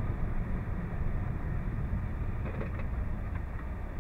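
Steady low rumble of a semi-truck's engine and tyres heard from inside the cab while driving, with a few faint clicks about two and a half to three and a half seconds in.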